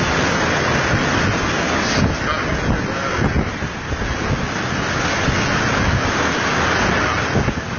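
Hurricane wind blowing hard against the microphone: a loud, continuous rush of noise that swells and eases slightly.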